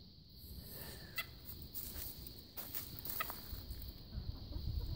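Hens clucking faintly, a few short, scattered calls, with a low rumble near the end.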